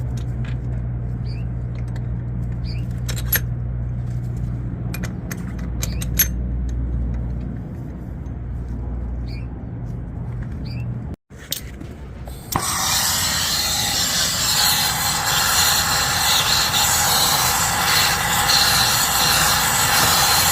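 A low steady hum with a few light metal clinks, then about two-thirds of the way in a loud, steady hiss starts: a soldering torch burning as the copper pipe is heated to sweat the ball valve on.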